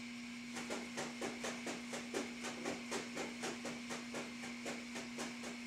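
Faint, rhythmic rustling and tapping, about three times a second, from quick alternating leg movements of a person lying on an exercise mat, over a steady low hum.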